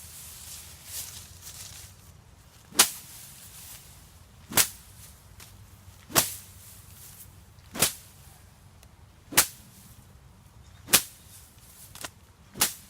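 A green sapling swung like a sickle, whipping through and slapping down tall grass: seven sharp swishes at an even pace, about one every second and a half.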